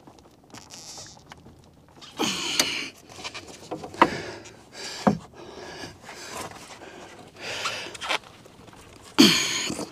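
Handling noise from a foam-insulated copper refrigerant lineset being pushed down onto wooden boards: rustles and scrapes, with two sharp knocks about a second apart near the middle. Between them come short noisy bursts, typical of a man breathing hard as he works bent over, the loudest near the end.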